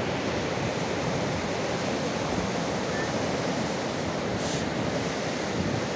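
Whitewater rapids of the Ganges river rushing over rocks: a steady, unbroken noise of churning water.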